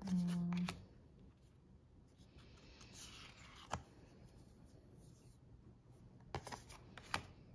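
A short hummed 'mm' opens, then tarot cards are handled on a wooden table: a soft sliding rustle of a card being drawn across the deck, followed by a few light taps as cards are set down.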